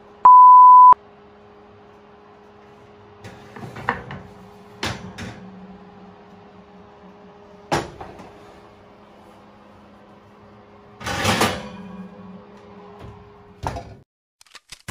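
A short, loud electronic beep near the start. Then scattered knocks and clatters of a metal deep-dish pizza pan and a wooden board as the pizza comes out of the oven and is set down on the stovetop, with a longer scraping clatter about eleven seconds in, over a steady low hum.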